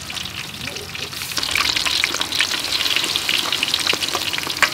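Battered chicken drumsticks deep-frying in hot oil in a wok: a dense crackling sizzle that grows louder about a second in. A single sharp click comes just before the end.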